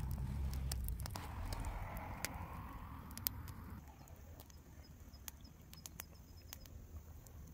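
Small fire of dry twigs crackling, with irregular sharp pops. It drops suddenly to a quieter level about four seconds in, the pops growing sparser.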